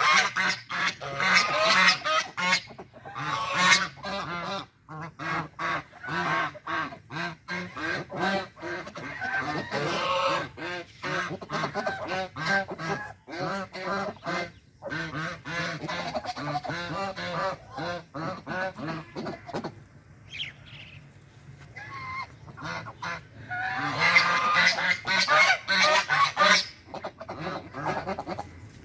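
A flock of white Chinese geese honking in rapid, overlapping calls, with loud hissing bursts at the start and again about three-quarters of the way through. The hissing is the aggressive warning geese give when defending their territory. The calls ease off briefly shortly before the second round of hissing.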